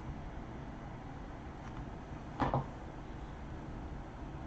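Steady low room hiss with a single short knock or click about two and a half seconds in.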